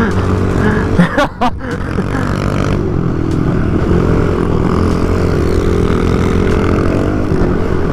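Small off-road motorcycle engine running hard as it is ridden, its pitch rising and falling with the throttle, with a few sharp knocks about a second and a half in.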